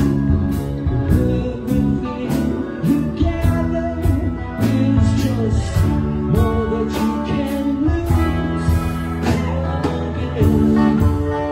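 Live rock band playing: electric guitar and electric bass over drums with a steady cymbal beat, and a voice singing.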